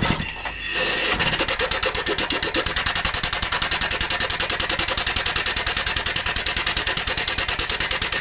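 Modified 150cc single-cylinder lawn mower engine, its camshaft reworked to act like a two-stroke, running on compressed air fed by hose: a rapid, even chuffing from the open exhaust port that settles in about a second in.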